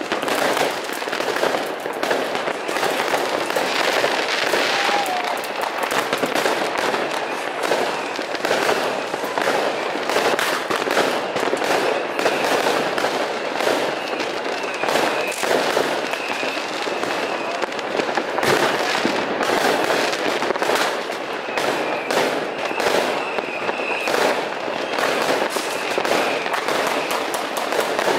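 Many fireworks going off at once, rockets and firecrackers cracking and banging from all around in a dense, unbroken barrage, typical of mass private New Year's Eve fireworks across a city.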